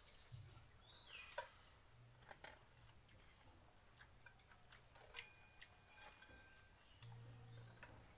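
Faint eating sounds: scattered soft clicks and wet ticks of fingers mixing water-soaked rice (pakhala) in metal bowls, with chewing.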